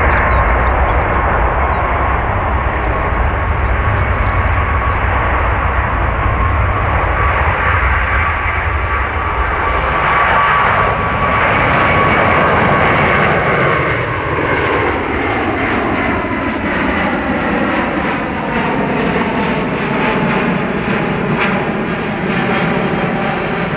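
Airbus A350's two Rolls-Royce Trent XWB turbofans at takeoff power as the jet takes off and climbs away. A steady engine whine gives way about halfway through to sweeping, falling tones as the aircraft passes and climbs out.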